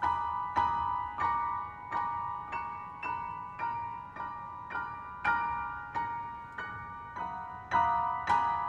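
Grand piano playing a repeating figure of high notes, a new note struck about every half second, each ringing on and fading under the next. The strikes grow louder near the end.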